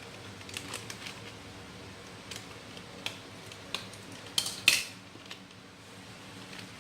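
A plastic packet of crispy frying flour being cut open with scissors over a pot, with scattered light clicks and clinks of kitchenware. The loudest sound is a short, sharp cluster of snips or crinkles about four and a half seconds in.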